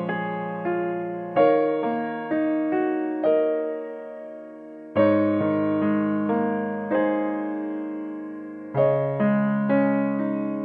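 Background piano music: slow notes and chords, each struck and left to fade.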